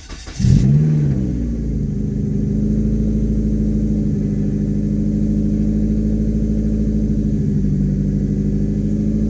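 1999 Mazda Protege's four-cylinder engine finishing its crank and catching about half a second in, its revs flaring up and falling back, then settling into a steady idle. It is the first start after an EGR cleaning and a cracked-hose replacement; the idle holds instead of sagging and stalling, though the owner still finds it a little rough.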